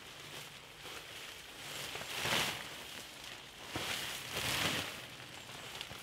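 A tarp rustling and swishing as it is unfolded and shaken out to lay down as a groundsheet. There is one louder swish about two seconds in and a longer one at around four to five seconds.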